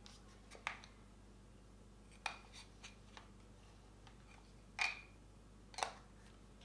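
Small clicks and rattles of a camera lens being handled and turned in the hands: several short sharp clicks a second or so apart, the loudest two near the end.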